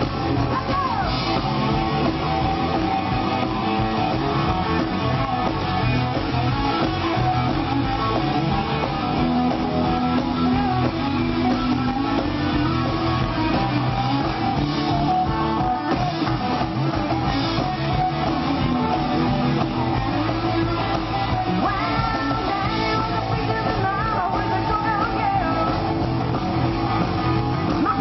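Live rock and roll band playing, with electric guitar and bass guitar, and singing.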